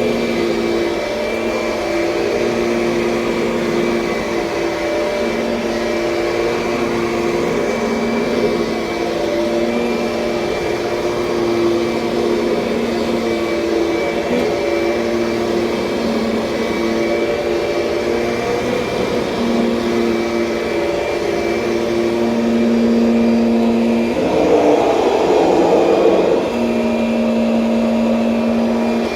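Kirby Sentria upright vacuum cleaner running steadily, its motor tone wavering as it is pushed back and forth. About three-quarters of the way through, a louder rushing surge lasts a couple of seconds.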